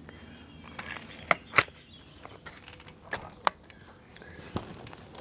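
Remington Express .22 break-barrel air rifle being handled between shots: a handful of short sharp clicks and knocks, the loudest a little over a second and a half in.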